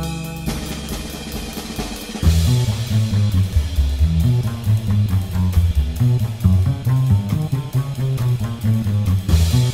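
Background music: a held chord fades out, then a rock-style beat with drums and bass guitar starts about two seconds in.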